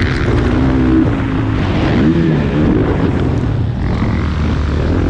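Motocross bike engine being ridden hard, its pitch rising and falling several times with the throttle.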